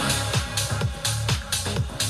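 Sony ULT Field 1 portable Bluetooth speaker playing electronic dance music: a deep kick drum on a steady fast beat, with hi-hats ticking above it.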